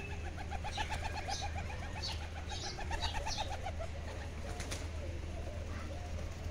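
Pigeons cooing: a rapid run of short repeated notes lasting about three seconds, with scattered higher bird chirps over it.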